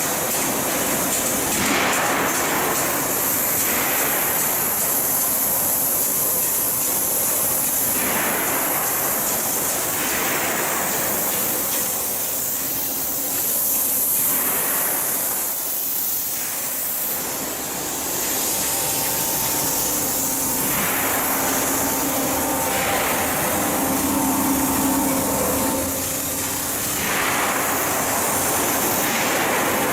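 Steel-coil cut-to-length line running: continuous machinery noise with a strong hiss, swelling every few seconds. A steady hum comes in partway through.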